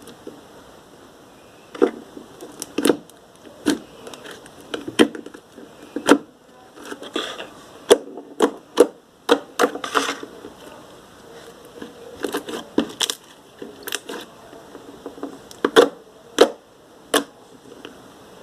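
Irregular clicks and knocks of small objects, such as plastic slime-making supplies, being handled and set down.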